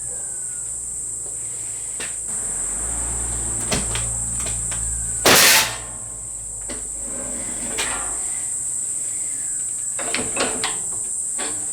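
Sheet-metal guillotine working a stainless steel sheet: scattered metal knocks and clanks, with one loud, harsh shearing crunch about halfway through. Crickets give a steady high chirr throughout.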